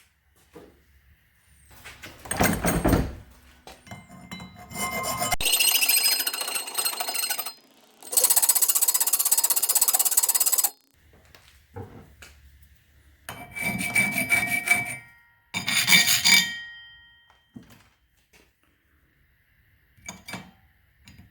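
Metal tool work enlarging a too-small opening in an aluminum bracket: several separate bursts of tool noise, each one to three seconds long, with quiet pauses between. The longest comes about midway and stops abruptly.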